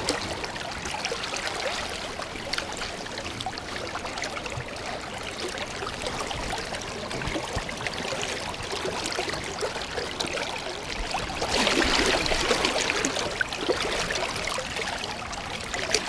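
Shallow stream running steadily over rocks, with a louder swell of rushing water for a second or two about twelve seconds in.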